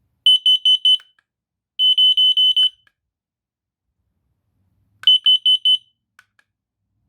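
A combination smoke and carbon monoxide detector's piezo alarm beeping: three bursts of rapid high-pitched beeps, about seven a second, the last burst after a pause of about two seconds.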